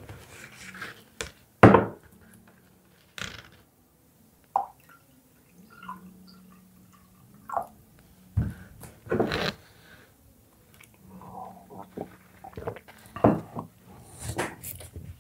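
Handling noise close to the microphone: scattered knocks, taps and rustles, the loudest a sharp knock about two seconds in.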